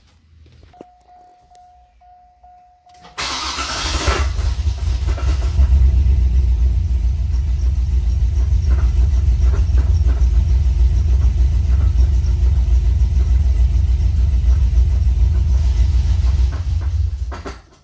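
C6 Corvette V8 cranked and started about three seconds in, idling, then switched off near the end. It clanks at start-up and at shut-off, which the owner likens to something stuck in the exhaust near the resonator. The sound comes from a collapsed valve lifter that has dropped idle oil pressure to 15–20. Before the start, a faint steady tone sounds for about two seconds.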